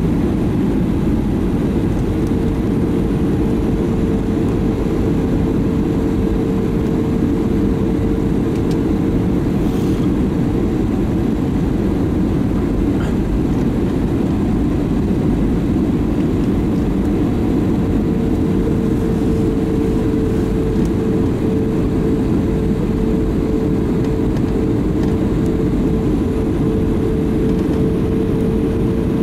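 Airbus A320neo cabin noise in flight: a steady rush of airflow and jet engine noise. A steady hum runs under it and fades for a few seconds midway before returning.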